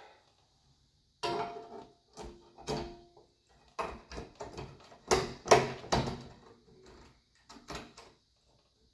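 Fluorescent tubes being fitted into a four-lamp fixture: a series of irregular clicks and knocks as the glass tubes are slid and turned into the lamp holders, a couple with a brief ring.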